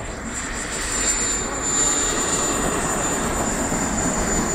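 The small gas turbine of a CARF Models Mephisto RC sport jet running in flight: a broad rushing jet noise with a steady high whine over it, growing louder about a second in and then holding.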